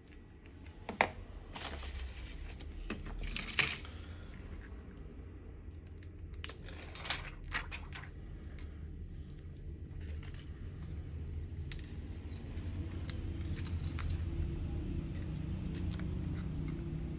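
Small sharp clicks, taps and scraping as phone parts and small tools are handled, over a low rumble that grows louder toward the end.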